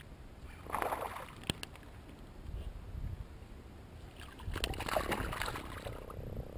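Water splashing and sloshing around a kayak in two bursts, about a second in and again around four and a half seconds in, with a single sharp click between them.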